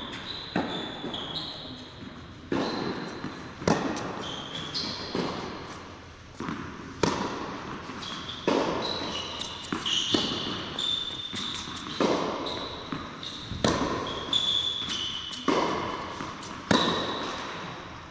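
Tennis rally on an indoor hard court: racket strikes and ball bounces about every second or so, each ringing on in the big hall, with high squeaking tones between the shots.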